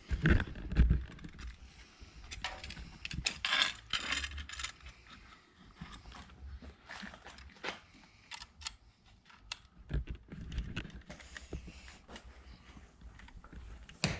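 Irregular clinks, knocks and scrapes of hand tools and small metal hardware being handled, louder right at the start, with a brief rustling scrape a few seconds in.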